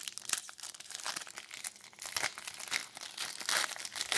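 Hockey trading cards and a foil pack wrapper being handled, with irregular crinkling and rustling and small clicks as the cards are sorted.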